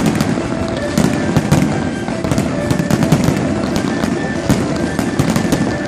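Aerial fireworks display going off in quick succession: a continuous barrage of bangs and crackles over a low rumble.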